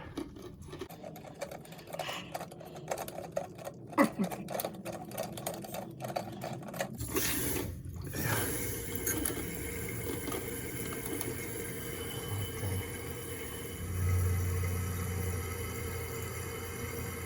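Rapid clicking as the toilet fill valve's water-level adjustment is turned. Then, from about seven seconds in, the fill valve runs with a steady hiss of water refilling the tank, the level being raised because it was too low.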